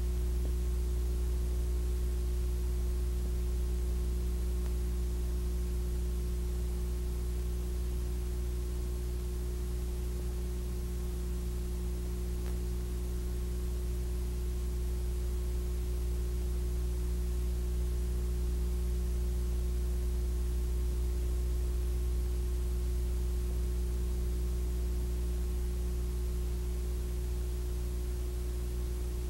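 A steady low electrical hum with a fainter higher tone over a constant hiss, and nothing else: the noise floor of a silent Super 8 film copied to VHS and then to digital video.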